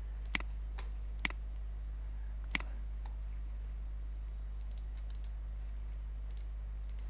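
Computer mouse clicking: three sharp clicks in the first three seconds, then fainter ticks, over a steady low hum.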